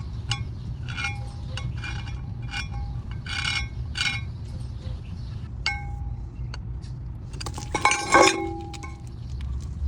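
Car brakes making short, repeated metallic clinking and ringing chirps while the car is stopping, the loudest burst about eight seconds in, over the steady low rumble of the moving car.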